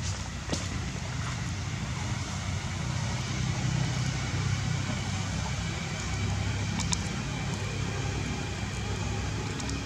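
Steady outdoor background noise with a low rumble, and a few faint clicks, about half a second in and near seven seconds.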